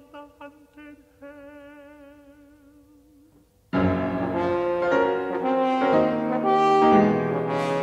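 A tenor singing a soft, slow phrase with vibrato over a held note; about four seconds in, French horn and piano break in very loudly with a heavy, march-like passage.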